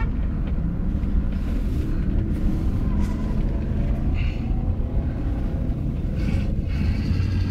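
1967 Mercury Cougar's V8 engine running steadily at low speed, heard from inside the cabin with road noise. Its low engine note grows stronger near the end.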